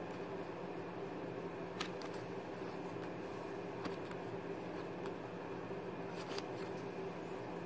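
A deck of playing cards handled and cut between the hands, giving a handful of short clicks and snaps of card on card, over a steady low hum.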